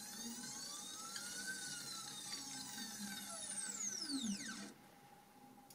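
Stepper motors of a SainSmart 3018 PROVer CNC router jogging the X axis. The whine rises in pitch as the axis speeds up, peaking about a second and a half in. It then falls as the axis slows and stops about a second before the end.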